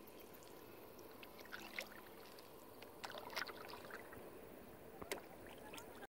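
Faint sounds of a kayak being paddled on calm water: a few soft paddle splashes and drips, about one every second and a half.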